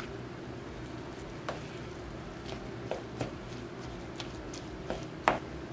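A spoon mashing cooked sweet potato cubes and butter in a glass bowl: soft squishing with scattered light clicks of the spoon against the glass, the sharpest one near the end, over a steady low hum.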